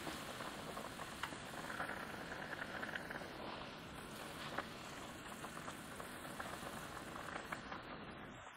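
Ramen broth boiling hard in a pot: a steady bubbling hiss with scattered small pops and clicks as chopsticks lift and loosen the noodle block.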